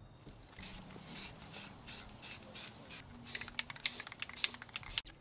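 Aerosol spray paint can sprayed in short bursts, a hiss about three times a second, quickening into rapid short spurts in the second half.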